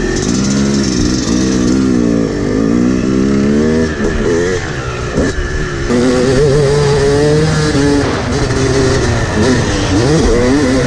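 Yamaha 250 two-stroke motocross bike engine ridden hard on a dirt track, its pitch rising and falling over and over as the rider works the throttle and gears.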